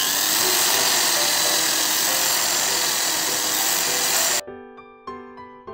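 Handheld electric drill boring a hole through an acrylic sheet: a loud, steady whir and grinding that cuts off suddenly about four seconds in. Light keyboard background music runs under it and carries on alone after the drill stops.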